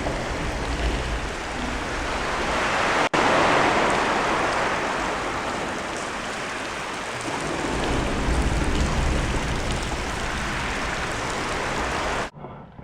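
Loud, steady rushing noise with a deep rumble underneath. It swells a few seconds in and again past the middle, then cuts off suddenly near the end.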